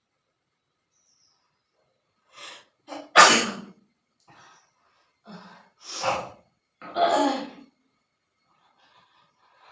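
A woman sneezing about three times, with short catching breaths before the sneezes; the first sneeze, about three seconds in, is the loudest.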